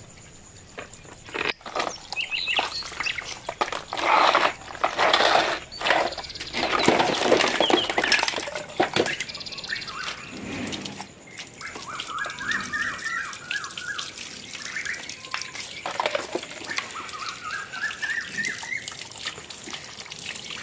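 Water from a garden hose splashing onto plastic toys and wet ground as they are rinsed, loudest in the first half. In the second half a bird twice sings a quick run of notes rising in pitch.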